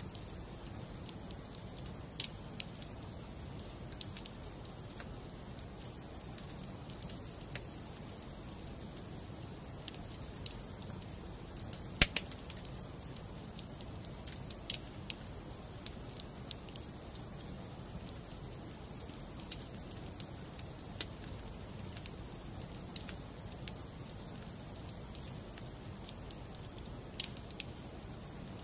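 Wood fire burning in a fireplace: a steady low hiss of flames with irregular sharp crackles and pops from the logs, one much louder pop about twelve seconds in.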